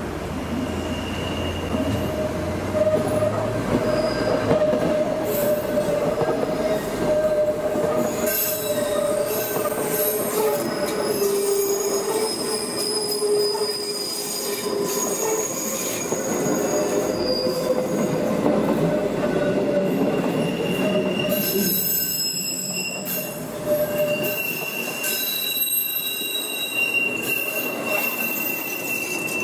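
Berner Oberland Bahn metre-gauge electric multiple units running past on a tight curve, their wheels squealing in several high tones that come and go and shift in pitch over the rumble of the running gear.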